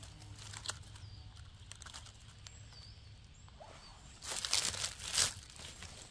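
Dry leaf litter on a forest floor rustling and crunching as a person moves through it, in a loud patch a little after four seconds in and a short burst near five seconds.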